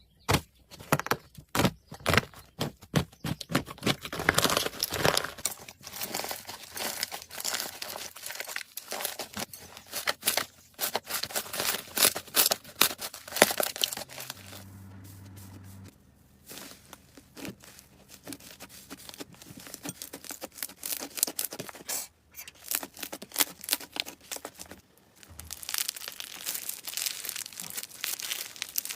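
Slime being pressed and squished by hand, giving dense, rapid crackling and popping, with a short quieter pause about halfway through.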